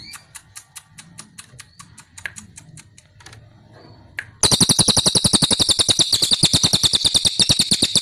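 Crested jay (cililin) calling: a series of dry clicks, about four or five a second. About halfway through it breaks into a loud, rapid rattle of about a dozen clicks a second.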